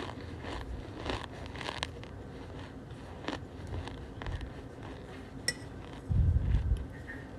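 Cornstarch being squeezed and pressed, giving short crunchy squeaks at irregular intervals. A louder low rumble of handling comes about six seconds in.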